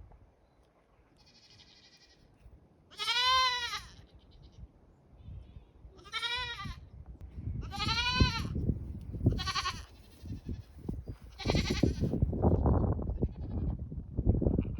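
Goats bleating repeatedly, about six calls a couple of seconds apart, each with a wavering pitch, as they call for the feed they expect.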